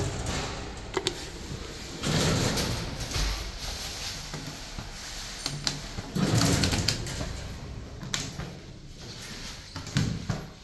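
Dongyang Elevator DY20 passenger lift: a button click, then the doors slide open about two seconds in and slide shut again about six seconds in, with further clicks of buttons being pressed in the car.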